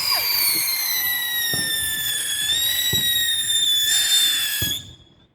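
A whistling "screamer" firework gives one long high whistle over a hiss, sliding slowly down in pitch. It cuts off a little under five seconds in with no bang after it. A few faint low thuds sound underneath.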